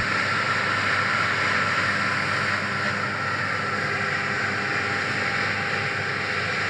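John Deere S680i combine harvester running steadily while harvesting rice: an even mechanical whir with a thin, steady whine through it.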